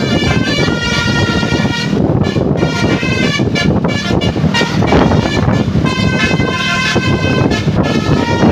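Tour bus 'telolet' multi-tone musical horn playing runs of stepped notes, twice: once in the first two seconds and again from about six seconds in. A dense low rumble of bus engine and traffic runs underneath.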